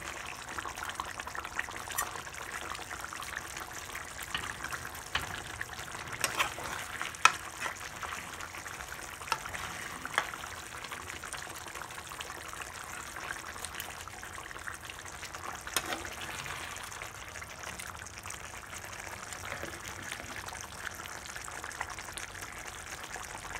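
Rohu fish curry gravy simmering and sizzling in a pan while a metal spatula stirs the fried fish pieces through it, with scattered sharp clicks of the spatula against the pan, the loudest about seven seconds in.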